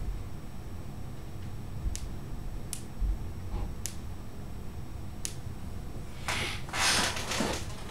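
A few scattered sharp clicks at a computer desk, then about a second and a half of rustling noise near the end, over a steady low hum.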